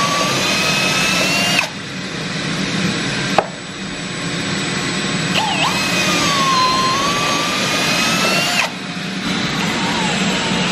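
Cordless drill boring through rubber hockey pucks: the motor's whine sags in pitch as the bit bites. It stops about one and a half seconds in, starts again around five seconds and runs about three seconds, then starts once more near the end, with a single sharp click between the runs.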